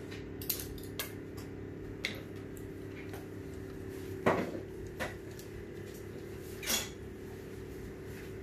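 Scattered clinks and scrapes of a spoon against a mixing bowl and baking tin as brownie batter is poured and scraped out, the loudest knock a little past four seconds in. A steady low hum runs underneath.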